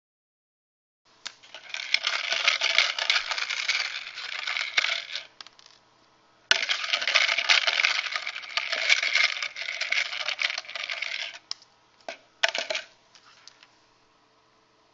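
Small cubes rattling and clattering inside a plastic bin as it is shaken. There are two long spells of dense rattling, then two short shakes near the end.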